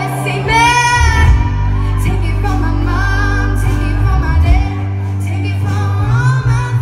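A woman singing a pop song live into a microphone, backed by a band with steady, held bass notes.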